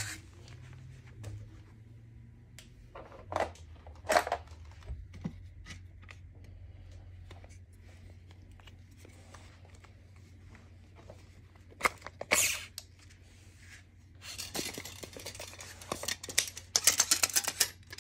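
Workbench handling noises: scattered clicks and short rustles, then from about three quarters of the way in a dense run of rapid clicks and rattles as a steel tape measure's blade is pulled out. A faint low hum sits underneath throughout.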